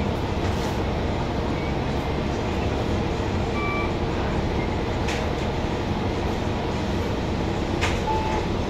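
Steady rumble of a New Flyer Xcelsior XN40 city bus heard from inside the cabin, with a couple of light knocks about five and eight seconds in.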